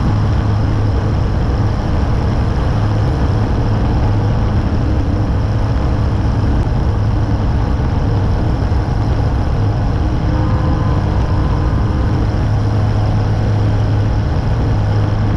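Zenair 701 STOL ultralight's Rotax engine and propeller running steadily in level flight, a loud even drone heard from a camera mounted outside under the wing.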